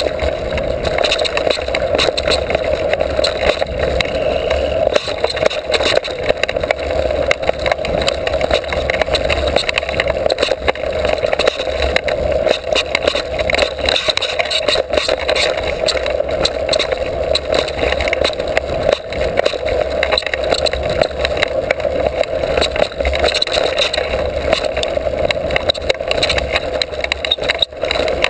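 Mountain bike ridden fast over a dirt forest trail, heard from a camera mounted on the bike: a steady rush of tyre and riding noise with many small rattles and knocks from the bumps.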